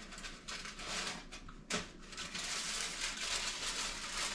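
Aluminium foil crinkling in bursts as a foil-wrapped sandwich is pulled out of an oven, with one sharp knock a little under two seconds in.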